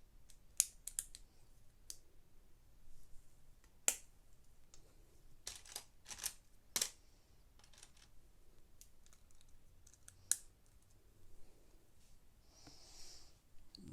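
Plastic Lego pieces clicking and clattering as they are handled and pressed together: scattered sharp clicks, the loudest about 4, 6 and 10 seconds in, with a soft rustle near the end.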